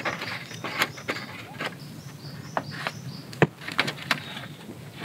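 A disposable lighter struck again and again, a sharp click every half second to second, as it is worked to light a fire-starter block. A faint high chirping runs through the middle.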